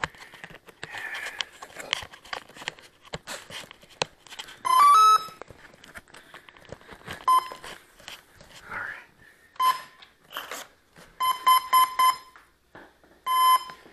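An RC plane's brushless motor speed controller (ESC) beeps its power-up and arming tones through the motor: a short rising three-note chime about five seconds in, then single beeps, a quick run of short beeps, and one longer beep near the end. Light clicks and rustles of handling come between the beeps.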